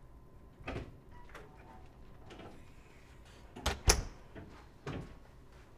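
A door being handled: a few scattered clicks and knocks, the loudest a quick pair of sharp clicks about four seconds in, as of a handle and latch being worked.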